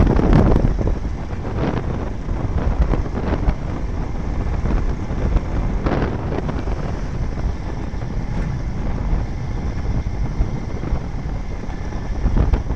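Wind buffeting the microphone of a moving motorcycle, with the motorcycle's engine running underneath.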